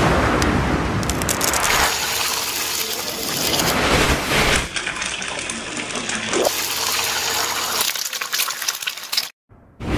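Egg frying in hot oil in a nonstick pan: a loud, steady sizzle full of fine crackles. It cuts out abruptly near the end.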